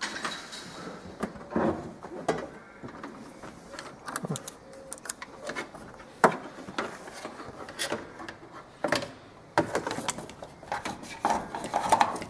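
Irregular clicks, knocks and rubbing as the seat and bodywork of a Countax ride-on mower are handled and the seat is tipped up over the battery; the engine is not running.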